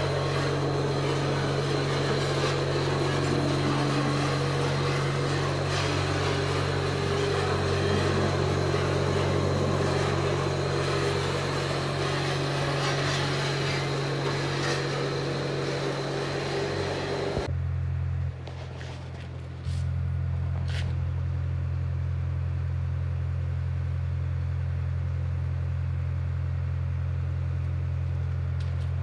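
Gas-heated garri frying machine running: its electric geared motor and stirring paddles give a steady low hum, with a loud rushing hiss from the gas burner over it. About two-thirds of the way through, the hiss cuts off suddenly and only the hum of the drive carries on.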